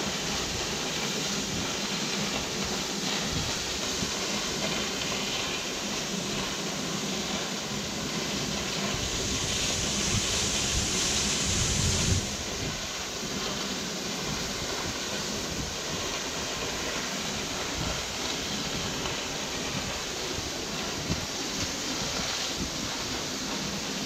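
Waterfall pouring into a rocky pool: a steady rushing of falling water. About nine seconds in it grows a little louder and hissier for a few seconds, then drops back suddenly.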